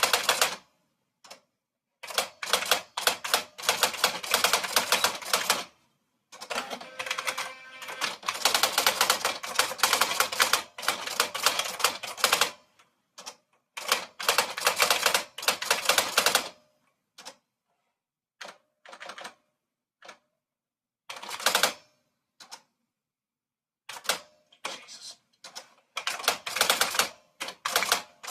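Typewriter being typed on: rapid runs of sharp key strikes lasting a few seconds each, separated by pauses and a few isolated single strokes.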